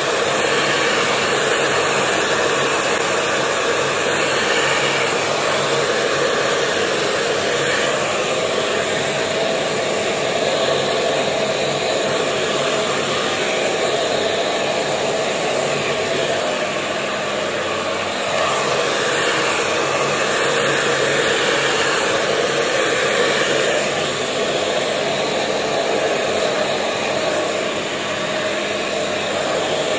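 Handheld hair dryer blowing steadily, drying damp, freshly rinsed hair.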